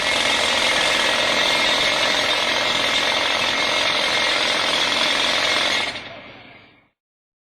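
Pneumatic drill (jackhammer) hammering steadily, stopping about six seconds in and dying away over the next second.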